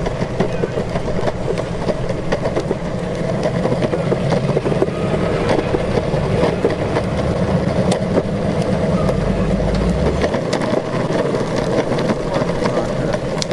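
Evolve electric skateboard riding along: steady wheel and drive rumble on pavement with wind buffeting the microphone. The low wind rumble drops away about ten seconds in.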